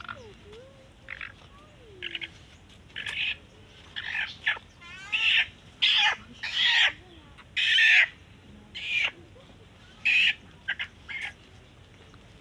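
A chicken squawking in distress as it is grabbed and held by hand, about a dozen short, loud squawks, loudest in the middle.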